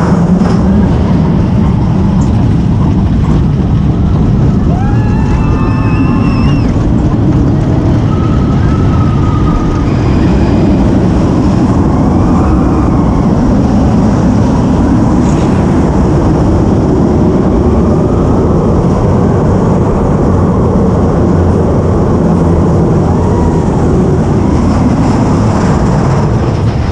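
Big Thunder Mountain mine-train roller coaster running along its track, heard from a seat on the moving train: a loud, steady rumble of wheels on rails mixed with wind on the camera.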